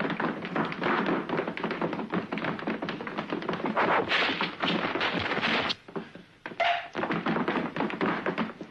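Rapid flurry of dubbed kung fu fight sound effects: sharp punch and block impacts, many a second, breaking off briefly about six seconds in and then resuming.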